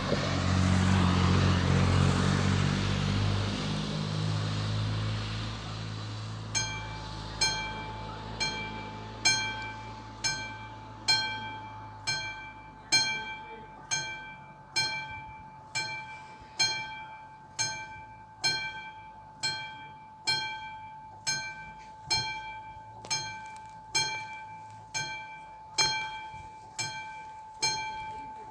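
A car drives past over the first few seconds. About six and a half seconds in, the level crossing's electronic warning bell starts: a ringing chime struck about once a second over a steady tone, warning of an approaching train.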